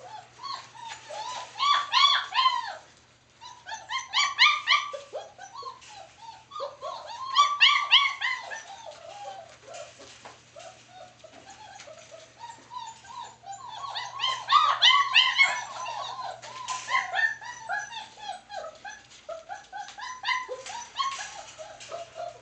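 Four-week-old German Shepherd puppies whining and yelping, a rapid string of short, overlapping high cries that comes in several louder bursts.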